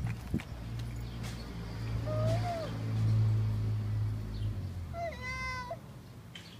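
Two brief high-pitched cries, a short one about two seconds in and a longer, stronger one near the end, over a steady low hum that stops just after the second cry.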